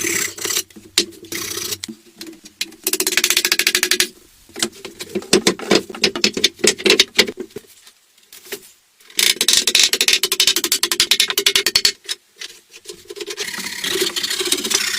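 Rapid scraping strokes on wood, in spells of two to three seconds separated by short pauses.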